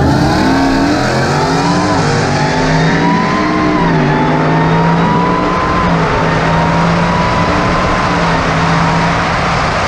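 Car engine at full throttle, accelerating hard from a standstill to high speed. The revs climb and then drop back at each upshift, several times over.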